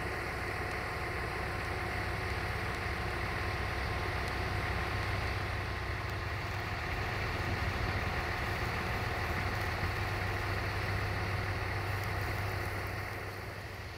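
Siemens Desiro diesel multiple unit's diesel engine running steadily with an even hum, fading off near the end.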